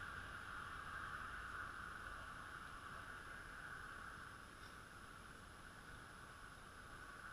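Faint, distant motorcycle engine receding, a steady drone that slowly fades away.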